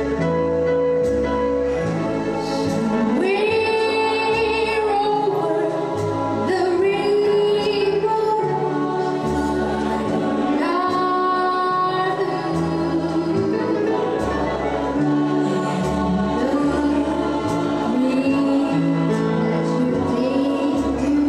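Music: a song with a sung vocal line gliding between notes over a bass line that changes note about every second.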